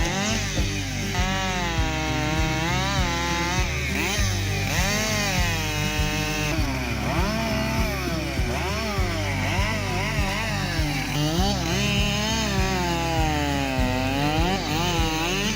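Chainsaw running and cutting wood, its engine pitch rising and falling over and over as it drops under load and revs back up.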